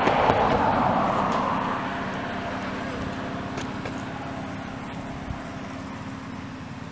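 A motor vehicle passing by: a rush of engine and road noise that is loudest at the start and fades away over the next few seconds.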